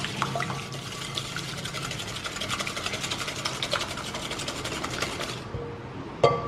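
Wire whisk beating eggs into oil and sugar in a glass mixing bowl: a fast, steady clatter of the wires against the glass that stops about five seconds in. Near the end comes a single sharp knock with a brief glassy ring, as an egg is rapped on the bowl's rim to crack it.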